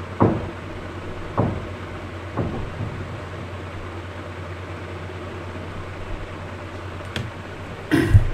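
Steady low background hum with dull knocks: three about a second apart in the first three seconds, a small click later on, and a louder double knock near the end.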